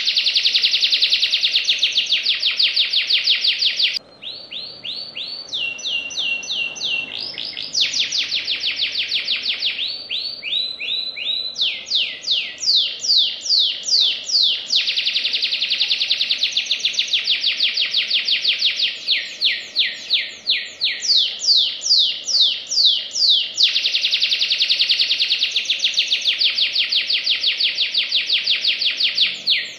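Domestic canary singing fast, tight trills: long runs of rapid repeated notes, each run at a different pitch from the last. About four seconds in, the song drops to softer, lower phrases for several seconds, then the loud rapid trills return.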